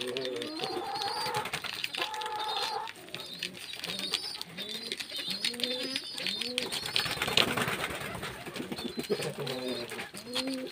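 Doves cooing over and over in short low calls, with small birds chirping higher up and a steady light rustling of leaves.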